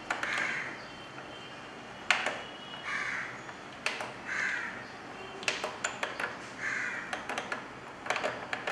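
A crow cawing four times, each caw short and spaced a second or two apart, with sharp clicks of keys being pressed on the HP LaserJet M436nda copier's control panel in between.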